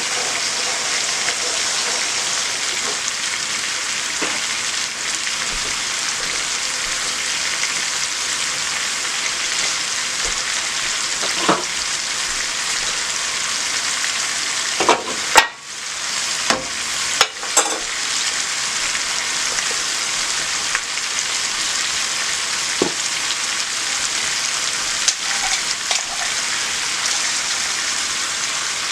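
Chicken pieces sizzling steadily as they brown in a frying pan. About halfway through come a few sharp knocks and clicks, and the sizzle dips briefly.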